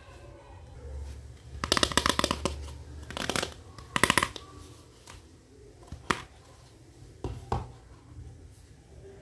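Hard plastic toy kitchen pieces handled by hand: a quick run of rattling clicks about two seconds in, then a few separate plastic clicks and knocks as a small plastic toy stove is picked up and set back down on the table.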